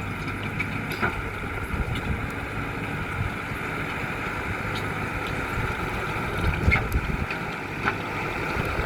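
Engine of a JCB loader running steadily, with a few short knocks and clunks.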